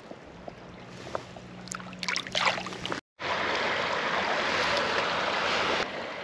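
Small splashes in shallow creek water as a fish is let go by hand. After an abrupt cut, a steady rushing noise that stops suddenly near the end.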